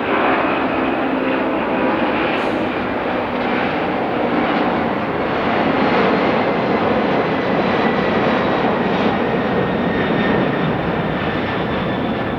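Jet airliner's engines running loud and steady as the plane passes, a dense rumbling rush with a faint high whine over it.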